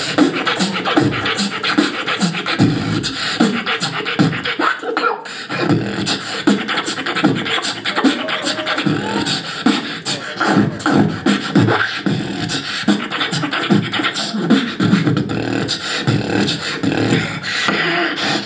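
A beatboxer performing a solo round into a cupped handheld microphone through the PA: a dense, unbroken run of vocal kick, snare and hi-hat clicks over low bass hums.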